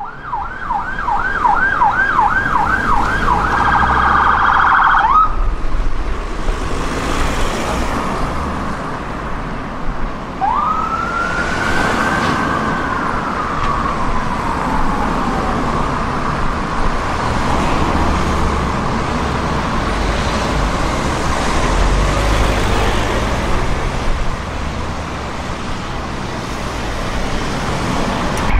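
UK emergency vehicle sirens over street traffic. A fast yelp speeds up into a quicker warble and cuts off about five seconds in. Later a single wail rises sharply, then falls slowly over about five seconds.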